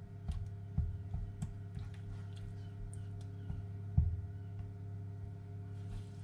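A spatula tapping and scraping lightly in a nonstick wok as butter melts, a handful of soft taps with the sharpest about four seconds in. A steady low electrical hum runs underneath.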